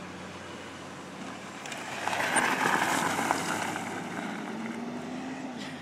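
Small dirt bike's engine running, then a loud burst of gravel crunching and spraying as the bike slides through the gravel about two seconds in, fading over the next few seconds. Near the end the engine note rises slightly.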